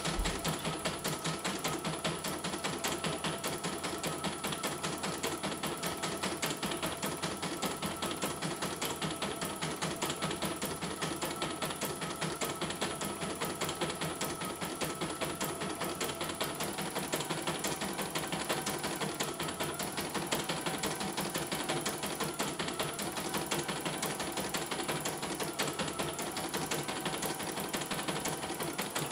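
CNY E900 portable embroidery machine stitching a design: a rapid, even clatter of the needle going up and down. The motor's steady tone shifts pitch about halfway through. The machine is running normally on its replacement mainboard.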